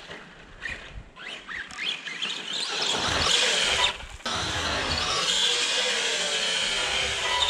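Arrma Big Rock RC monster truck driving on dirt: its brushless electric motor whine rising and falling with the throttle, then a steady run at speed with a short break about four seconds in.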